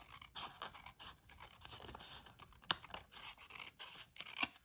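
Small scissors snipping along the edge of a wood-grain printed paper floor piece: a faint run of crisp snips and crackles, with one sharper snip near the end.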